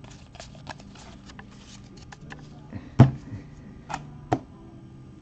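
Baseball trading cards handled on a tabletop: light clicks and ticks as cards are flicked through and dealt, then a knock about three seconds in and two sharper taps a second or so later as cards are set down on the table mat.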